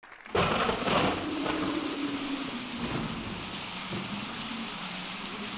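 Recorded rainstorm sound effect played over a theatre's sound system: it starts suddenly with a loud thunder crash, then settles into steady heavy rain with a low steady tone underneath.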